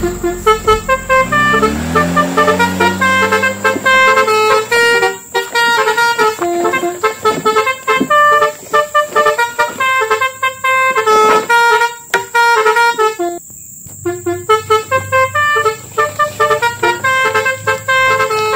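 Upbeat background music made of short, bright, horn-like synth notes in a quick melody, with a low tone gliding upward over the first few seconds and a short break about thirteen seconds in.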